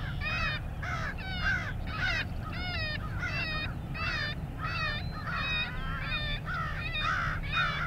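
A flock of crows cawing over and over, about two to three caws a second and overlapping, the birds excited ("going nuts"). A low steady rumble runs underneath.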